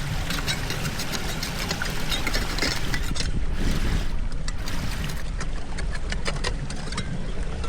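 Floodwater running and splashing, with a steady low rumble and many small clicks and splashes throughout.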